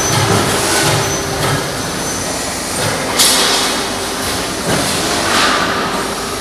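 Steady factory machinery noise with a low hum, broken about three seconds in by a short, sharp high-pitched hiss.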